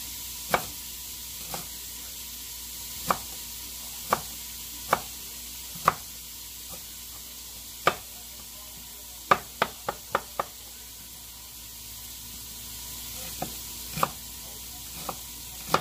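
Knife slicing an onion on a cutting board: irregular sharp taps of the blade striking the board, with a quick run of five taps a little past the middle.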